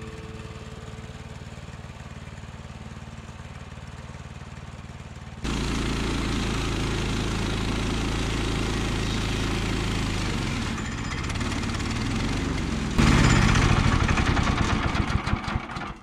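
Gasoline engine of a Woodland Mills portable bandsaw mill running steadily, louder after about five seconds. Its pitch sags, then it runs rough and loud with a pulsing sputter and cuts out abruptly at the end as the engine runs out of gas.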